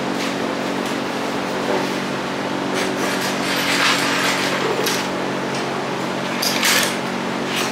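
Scattered scraping and rubbing of a wooden board and tools being handled, loudest about three to four seconds in and again near the end, over a steady machine hum.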